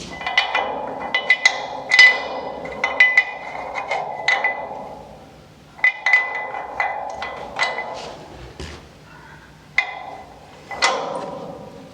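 Irregular metallic clinks and taps of hand tools and steel suspension hardware, each ringing briefly, in clusters of several strikes separated by short pauses.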